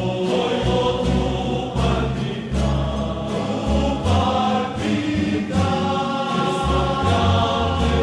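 Rondalla music: a chorus of voices singing together in held chords over guitars, with a bass line moving under them.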